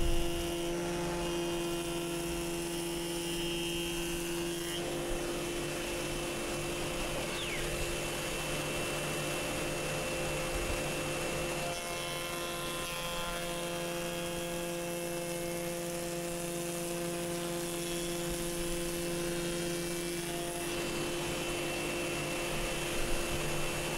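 Hammer A3 31 jointer-planer running on the jointer side, its cutter block spinning with a steady hum of several fixed tones. The sound changes slightly about 5 seconds in and again about halfway through.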